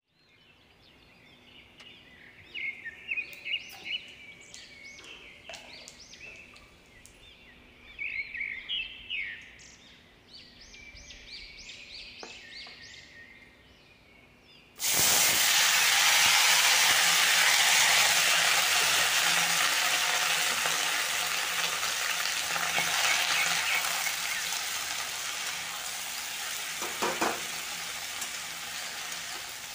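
Sliced spiny gourd (kakora) hitting hot oil and cumin in an iron kadhai: a sudden loud sizzle about halfway through that slowly dies down as the slices are stirred, with a knock of the spatula on the pan near the end. Before that, only faint high chirps over the low sizzle of the oil.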